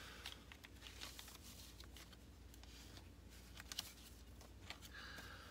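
Faint rustling and light clicks of a 45 RPM record picture sleeve in a clear plastic protective sleeve being handled, over a low steady room hum.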